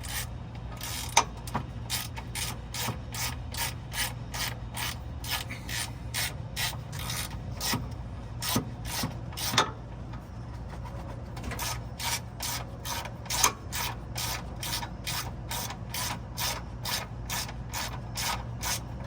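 Hand ratchet wrench clicking in steady strokes, about two or three clicks a second, as it drives a bolt. It stops for about a second midway, then starts clicking again.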